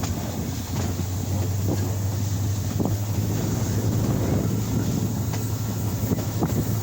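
An engine running steadily with a constant low hum, under wind buffeting the microphone.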